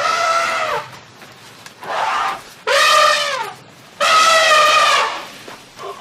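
Loud, drawn-out vocal cries, four in a row, each lasting up to about a second and sliding down in pitch at the end.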